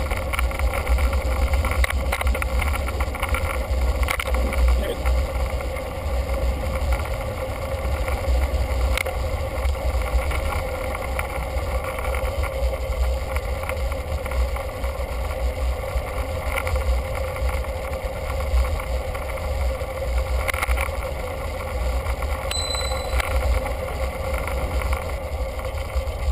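Wind rumbling on a bicycle-mounted camera's microphone, mixed with steady road noise from the moving bike.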